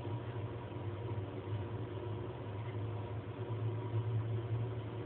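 A steady low mechanical hum that holds unchanged throughout.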